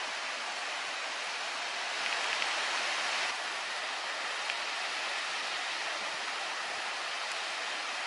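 Steady rushing hiss of running water, a little louder for about a second around two seconds in.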